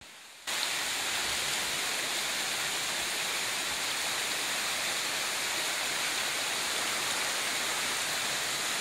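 Rushing water of a small rocky stream running fast over shallow riffles: a steady hiss that starts about half a second in.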